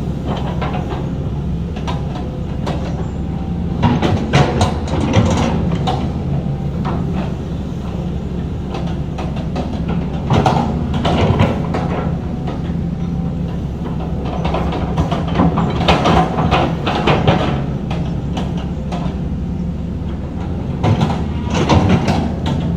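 Heavy diesel earthmoving machinery running with a steady low engine drone, broken every few seconds by bouts of metallic clanking and scraping from the working gear.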